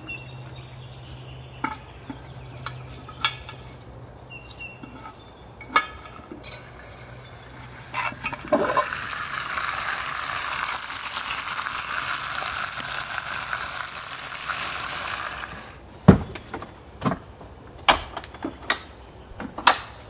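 Camp cooking: utensils and cookware clinking and knocking, with a steady hiss of about seven seconds in the middle that starts with a short rising sweep and cuts off abruptly. A heavy knock follows shortly after the hiss stops.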